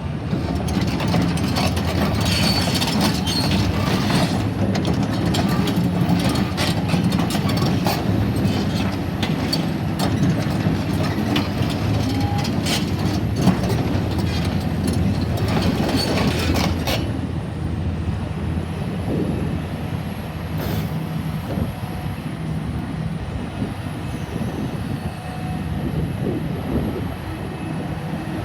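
2006 Hitachi ZX350LC-3 hydraulic excavator's diesel engine running, with repeated metal clanks and squeals for roughly the first seventeen seconds, after which the machine settles to a steadier running sound.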